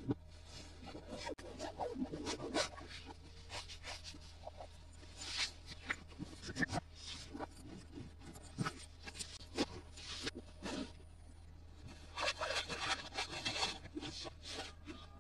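Hands handling toy packaging and toy pieces: irregular rubbing, scraping and light clicking taps, with denser bursts of scratchy rubbing about five seconds in and again near the end.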